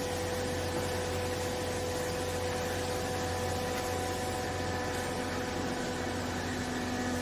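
Used-clothes baling machine running: a steady mechanical hum with a constant whine. A second, lower tone joins about five seconds in.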